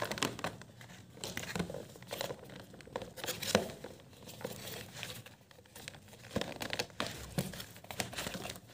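Hard plastic shoe-rack parts clicking, knocking and scraping as white shelves are pressed onto red X-shaped plastic legs, in short irregular clicks with light rustling between them.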